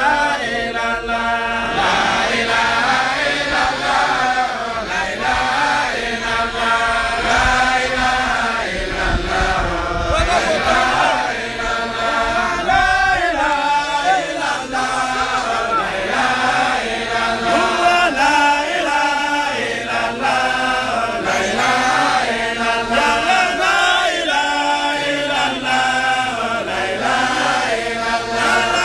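A group of men chanting an Islamic dhikr together in long drawn-out phrases that rise and fall.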